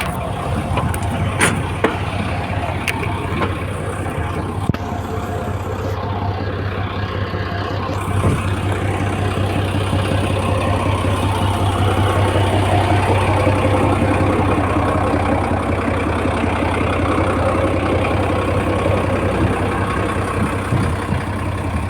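Komatsu D85ESS bulldozer's diesel engine running with a low steady drone, growing louder from about eight seconds in. A few sharp clicks sound in the first few seconds.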